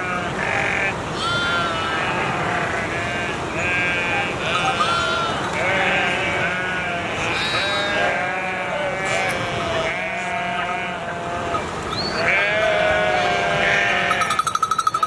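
A herd of sheep bleating, many overlapping calls one after another without pause, with a fast quavering bleat near the end.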